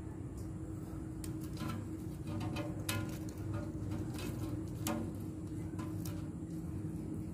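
Heat-resistant felt gasket tape being handled and pressed onto a smoker's steel rim: scattered short crackles and clicks over a steady low hum.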